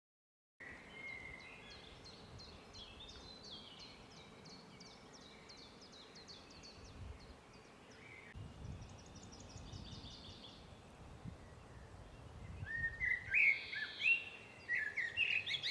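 Wild birds singing over faint outdoor background noise, starting about half a second in. A fast series of high repeated notes runs for roughly the first ten seconds, then louder chirps come in the last few seconds.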